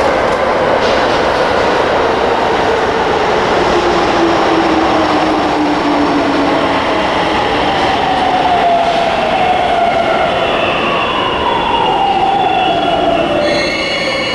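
Toei 10-300 series subway train pulling into the station and braking, running over the rails, its motor whine falling steadily in pitch as it slows. Near the end, several high squealing tones come in as it draws to a stop.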